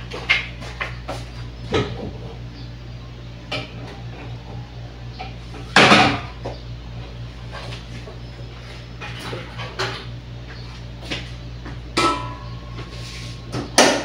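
Kitchen handling sounds: scattered clicks and knocks of pots, pans and cupboards being moved, with one loud clatter about six seconds in and a sharp knock with a short ring near the end, over a steady low hum.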